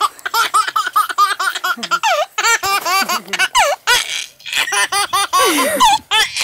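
Baby laughing hard in a long string of short, high-pitched bursts, several a second, with a few brief pauses for breath.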